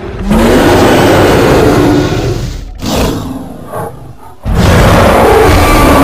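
Tyrannosaurus rex roar sound effect: a loud, rough roar of about two seconds, a short growl near the middle, then a second long roar starting about four and a half seconds in.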